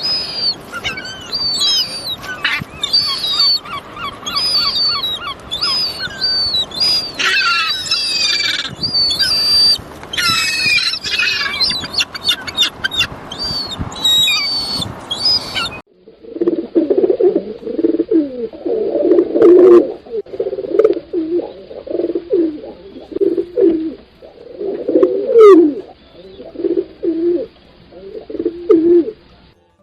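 Small birds chirping and singing in rapid high trills, then, after a sudden cut, a different bird giving low repeated calls, one every second or so.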